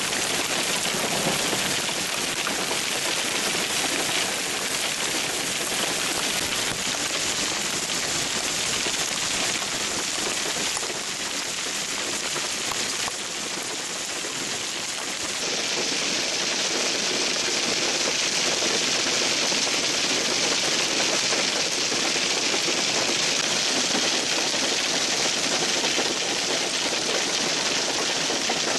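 Heavy hail, stones about an inch across, falling with rain and pelting the road, ground and parked cars in a dense, rapid clatter over a steady hiss. The sound turns brighter and a little louder about halfway through.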